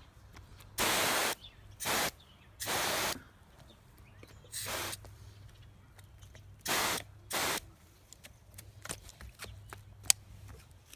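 Water spraying from the pistol-grip nozzle of a Podura expandable garden hose in six short hissing bursts, each under a second, as the trigger is squeezed and released. There is a single sharp click near the end.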